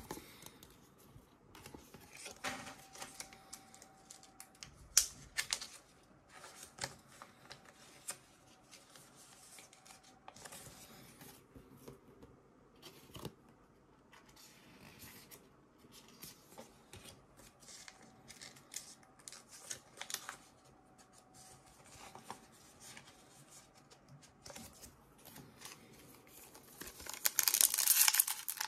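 Pokémon trading cards handled and set down on a table, with scattered soft clicks and slides. Near the end a foil booster pack wrapper crinkles loudly as it is torn open.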